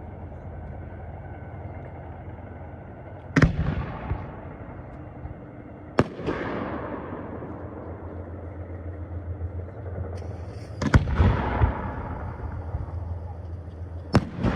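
Fireworks shells bursting overhead: four sharp bangs, roughly three to four seconds apart, each trailing off in a fading tail.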